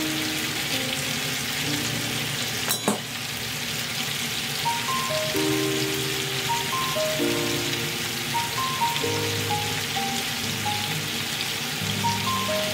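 Chicken thighs and cut vegetables sizzling steadily in a frying pan, under soft background music with a simple melody. A single sharp click is heard about three seconds in.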